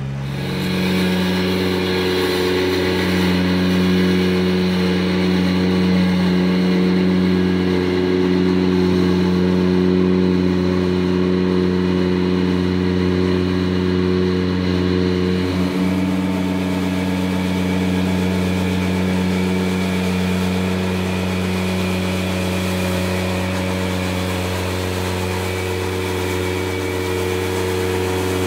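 Ventrac compact tractor's engine running at a steady speed while it works an attachment, a constant hum with steady overtones.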